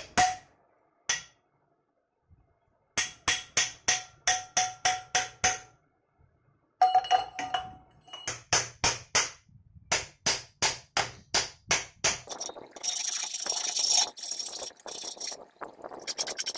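Hammer blows on a steel plate clamped in a bench vise, in three quick runs of ringing strikes about three or four a second, as the cut-out centre is knocked free. About thirteen seconds in, the strikes give way to the rasp of a flat file on the cut steel edge.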